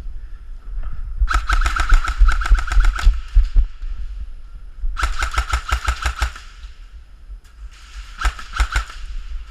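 Airsoft gun firing on full auto in three bursts of rapid clicks, each about one to two seconds long, over a low rumble.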